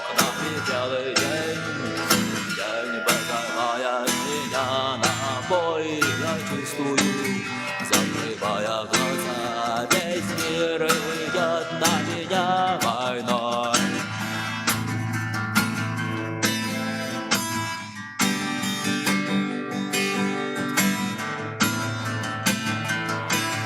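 Instrumental break of a rock song played on guitars: a wavering lead melody over strummed guitar and a steady beat, with no singing. The lead line drops out about halfway through, leaving the strummed accompaniment.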